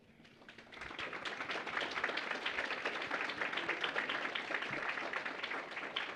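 Applause, many hands clapping, swelling about a second in and then holding steady.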